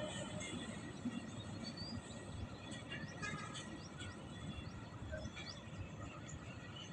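Faint low rumble of a train of covered goods wagons running away along the track, with small birds chirping now and then.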